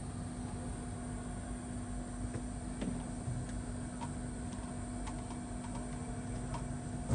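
Steady electrical hum with a fan-like hiss from running bench equipment, with a few faint light clicks of small hand tools on a laptop motherboard scattered through the second half.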